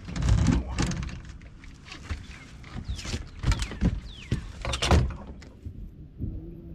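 A run of irregular knocks and thumps, loudest about half a second in and again near five seconds in, with a few short falling chirps behind them.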